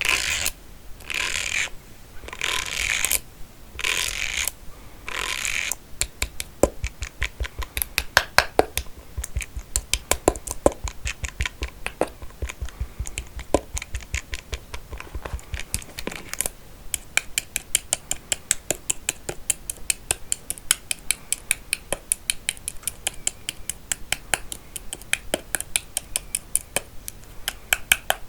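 Combs handled close to the microphone: five scratchy strokes in the first few seconds, then a long, fast run of light clicks and taps, several a second.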